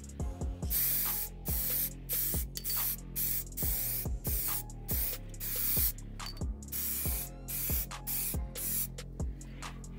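Aerosol spray-paint can hissing in many short on-and-off bursts as a coat of paint goes onto a motorcycle swing arm. Background music with a steady beat plays underneath.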